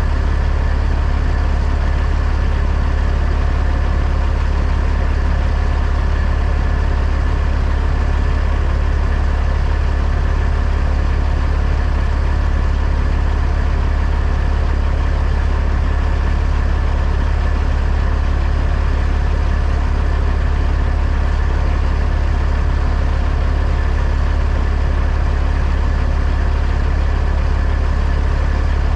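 Truck engine running steadily, a constant low drone that does not change.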